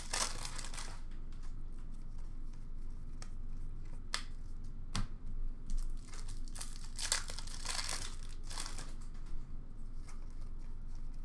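Upper Deck hockey card pack wrappers being torn open and crinkled, in bursts near the start and twice more about two-thirds of the way through, with a few sharp clicks between.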